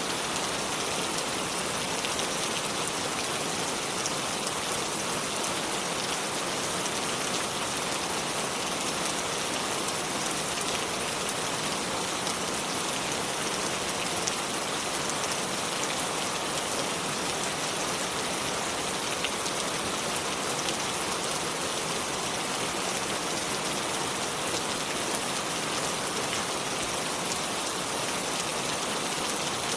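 Shallow river water flowing over stones: a steady, bright splashing babble that does not change.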